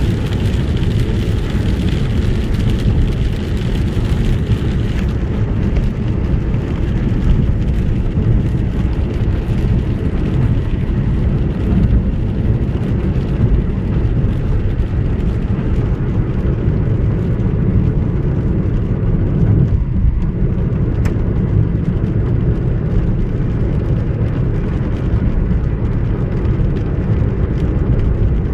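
Steady low rumble of a car driving on a wet road, its engine and tyres heard from inside the cabin, with a higher hiss on top that dies away about five seconds in.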